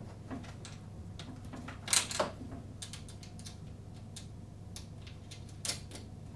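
Light clicks and taps of wing nuts being fitted by hand onto the screws of a lawn mower's plastic battery box, with a couple of louder knocks about two seconds in and one near the end.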